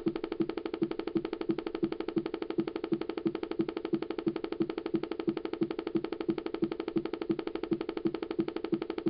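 2007 iMac making a fault noise after waking from sleep: a pitched, buzzing tone that pulses steadily about three times a second without letting up.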